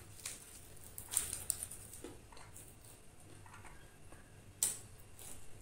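Homemade crispy fried chicken with a cornflour-and-oat coating being picked apart by hand and chewed: a scatter of short crackles and crunches, the sharpest one a little over a second in and another near the end.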